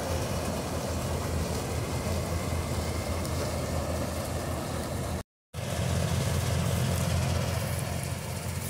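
Combine harvester driven by a John Deere 5310's three-cylinder diesel engine, running steadily under load while cutting standing wheat, the engine drone mixed with the noise of the harvesting machinery. The sound cuts out for a moment about five seconds in.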